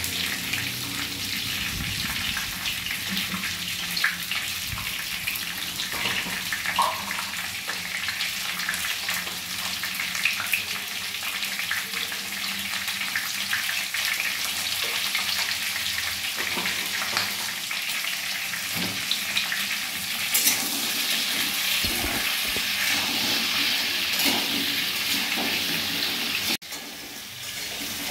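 Potato chunks frying in hot oil in a kadai: a steady sizzle, with a few sharp clicks scattered through it.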